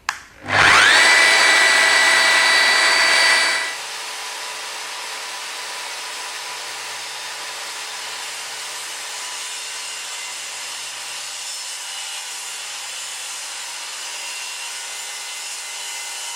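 A woodworking power tool cutting a chamfer in timber: it winds up with a rising whine about half a second in, runs loud for about three seconds, then drops sharply to a quieter steady running noise.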